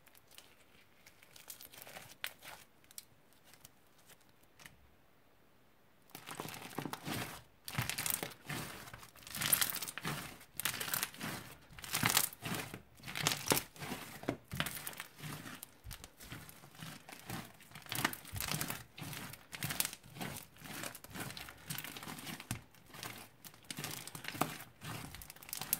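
Hands kneading and squeezing a thick crunchy slime with small beads mixed through it, giving dense, irregular crackling and crunching. It starts about six seconds in, after a quieter stretch of faint soft clicks.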